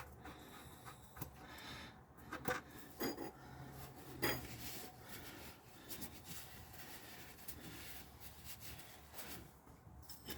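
Faint metallic clicks and light scraping as an oil drain plug is worked into a steel oil pan by hand. A few of the clinks ring briefly.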